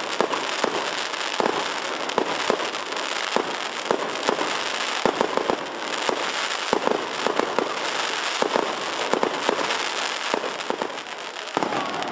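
Fireworks display: a continuous crackle of bursting shells with many sharp pops and bangs scattered throughout, easing slightly near the end.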